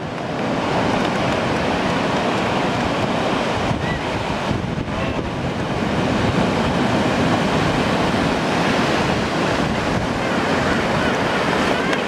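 Ocean surf breaking and washing up the beach: a steady rush of water noise.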